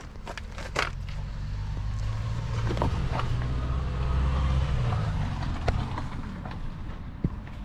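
A motor vehicle's engine rumble swelling to its loudest about four seconds in and then fading away, as of a vehicle passing by. A few sharp clicks and knocks, the clearest about a second in.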